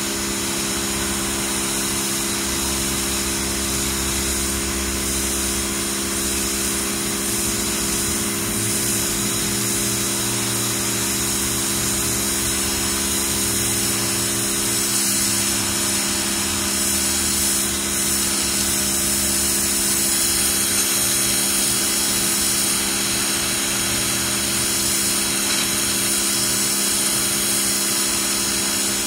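Pressure washer running steadily, its motor and pump humming under the hiss of the high-pressure water jet spraying onto concrete.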